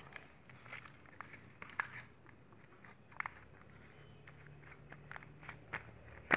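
Clear glitter slime being kneaded, squeezed and pressed flat by hand, giving irregular sticky clicks and short pops, with the loudest pop near the end as the palms press it down.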